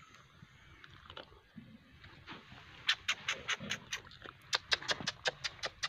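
Fast run of wet smacking clicks from an animal's mouth, several a second, starting about halfway through and coming in two bursts.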